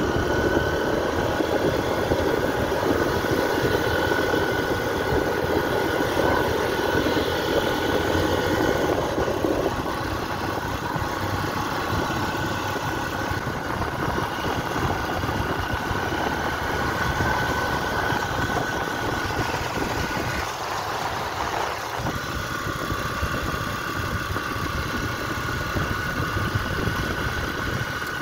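Trail motorcycle engine running as the bike rides along a dirt road, mixed with road and wind noise; the sound eases a little about ten seconds in.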